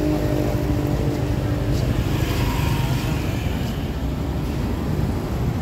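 Motor scooters running past on the street, a steady low rumble of traffic; one engine's hum fades out in the first second or two.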